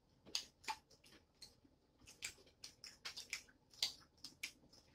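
Quiet, irregular sharp clicks and smacks of seafood being eaten and handled at the table, about a dozen spread unevenly across a few seconds.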